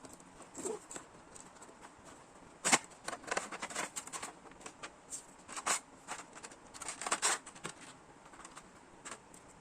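Irregular light clicks, taps and rustles of a small plastic action figure and its parts being handled, with the sharpest click a little under 3 seconds in.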